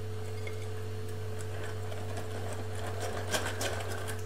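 A metal utensil beating cake batter in a glass bowl, with a cluster of sharp clicks against the glass a little past three seconds in. A steady low electrical hum runs underneath.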